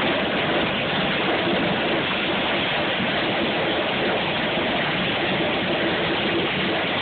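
Heavy hail with rain pounding down, a steady, dense din of countless small impacts.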